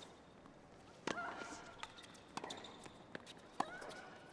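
Tennis rally: three sharp racket strikes on the ball about a second and a quarter apart, the first and last each followed by a player's short grunt.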